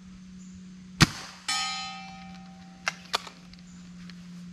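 A single shot from a .30 caliber Hatsan break-barrel air rifle about a second in. About half a second later comes a ringing metallic clang that fades over about a second, typical of the pellet striking a metal target downrange. Two short clicks follow near three seconds in, over a steady low hum.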